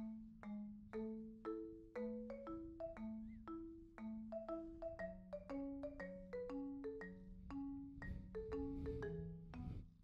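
Background music: a light tune of marimba-like mallet notes struck at a steady pace.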